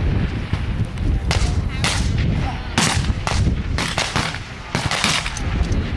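Several high-power target rifles firing irregularly along a firing line: about nine sharp shots in a few seconds, some close together, over a steady low rumble.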